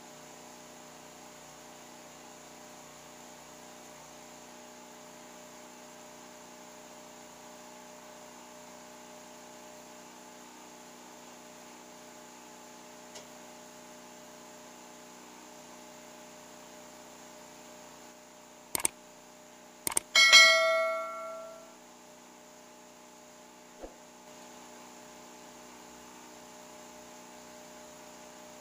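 Steady background hum throughout. About two-thirds of the way through come two or three sharp clicks, then a single metallic ring, like a struck piece of metal, that dies away over about a second and a half.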